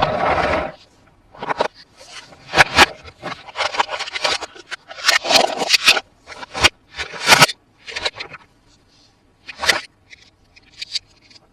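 Toy packaging and plastic toy parts being handled: irregular scraping and rustling with sharp plastic clicks, thinning out near the end.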